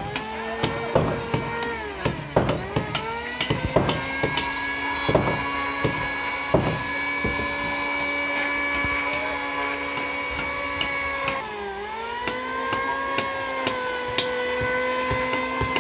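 Electric power tool motor whining steadily at a high pitch, the pitch dipping briefly a few times, most deeply about eleven seconds in. Sharp wooden knocks come thick and fast through the first six seconds.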